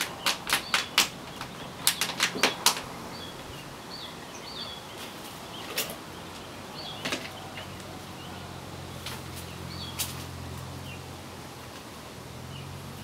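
Thin plastic water-bottle pot crinkling and crackling as an adenium's root ball is worked out of it: a quick run of crackles over the first couple of seconds, then a few scattered ones.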